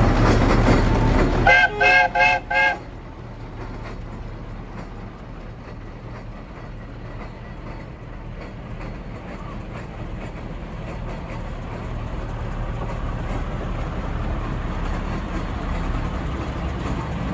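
A traction engine's steam whistle tooted four times in quick succession, about two seconds in, after a loud steady rush of noise. Then a quieter steady rumble that slowly grows louder as the engine and the long road train of lorries behind it roll slowly by.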